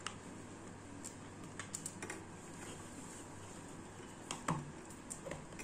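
Light, irregular clicks and taps from handling a small homemade lamp, with a clear plastic cover being pressed onto its black box. The loudest click comes about four and a half seconds in.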